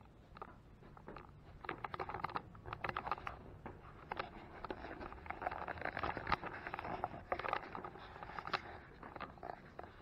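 Handling noise from a handheld camera: irregular rustling, scraping and small knocks as it rubs against a shirt and is moved about.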